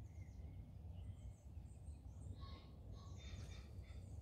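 Faint calls of wild birds: a few short chirps and a run of quick high notes in the second half, over a low steady rumble.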